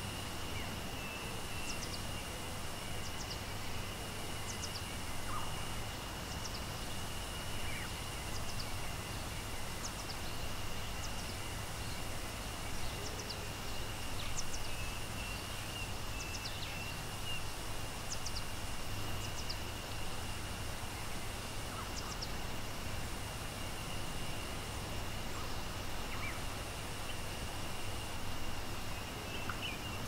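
Steady rushing of a waterfall, with short bird chirps scattered over it and a thin, steady high-pitched tone throughout.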